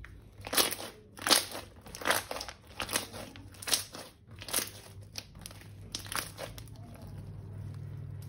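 Slime being squeezed and pressed in the hands, giving a crackly, crinkling squish about every second, eight or so times in an even rhythm before it stops about two-thirds of the way in.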